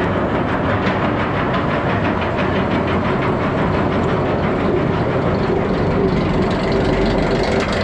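B&M wing coaster train climbing the lift hill: the lift chain rattles under a steady rapid clicking, typical of the anti-rollback mechanism, over the rumble of the train.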